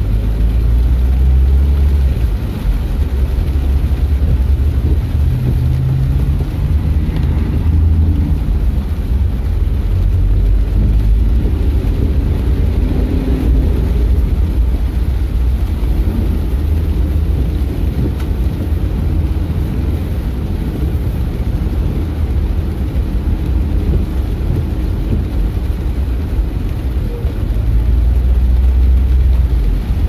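Steady low rumble of a car driving on a wet road, its engine and tyres heard from inside the cabin.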